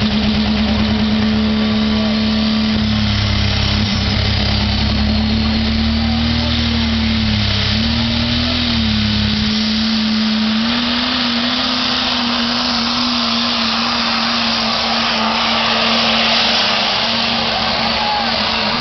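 Pro street diesel pickup truck's engine running hard under load while pulling a sled: a loud, steady engine drone that sags briefly in pitch near the middle, with a deep rumble beneath it that drops away about halfway through.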